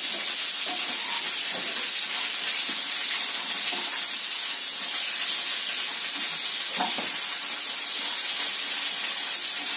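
Pelmeni frying in oil in a pan: a steady sizzle as they are stirred with a wooden spatula, with a brief knock about seven seconds in.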